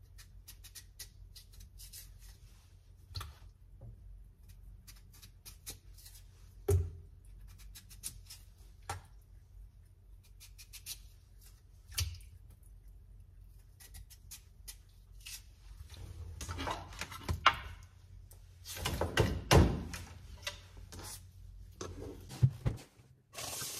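Scattered knocks and thuds indoors, with a denser run of louder knocks a little past the middle and a steady hiss starting just before the end.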